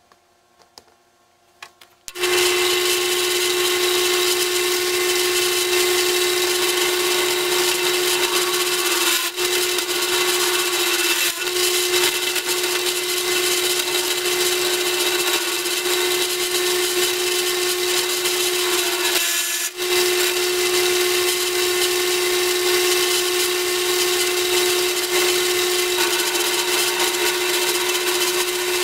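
Drill press spinning an end mill at about 1900 RPM and milling a slot in mild steel: a steady machine whine with a strong single tone over cutting noise. It starts suddenly about two seconds in and briefly drops out three times.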